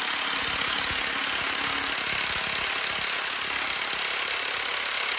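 Milwaukee 2767-20 M18 Fuel half-inch high-torque cordless impact wrench hammering steadily at full power through an impact socket on a bolt welded to a steel bench, the fastener held fast and not turning.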